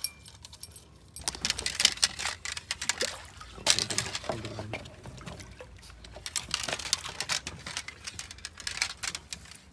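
A hooked catfish thrashing at the water's surface, a run of irregular splashes starting about a second in.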